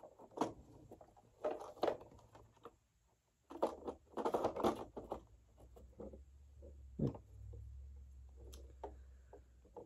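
Plastic parts of a Eureka upright vacuum being handled and fitted together: scattered clicks, taps and scrapes, with a denser run of rattling about four seconds in and a sharp click near the end.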